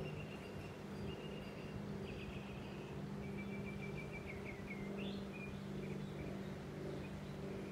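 A small songbird singing a series of short trilled chirps, which stop about five seconds in, over a steady low hum.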